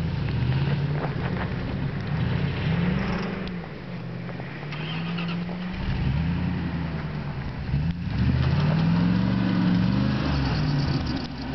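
Pickup truck engine revving up and falling back again and again as the truck rocks and spins its wheels to get free of deep snow. The revs are loudest over the last few seconds as it breaks out onto the road.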